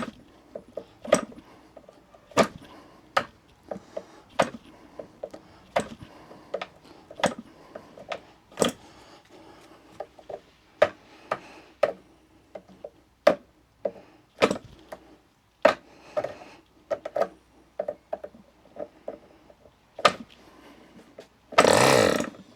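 OS MAX 40 two-stroke glow engine's propeller being flicked over by hand, a sharp clack with each flick about once a second. Near the end the engine fires in a brief burst lasting about a second, catching briefly as it gets close to starting.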